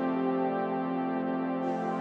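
Background music: a sustained synthesizer or keyboard chord, held steady.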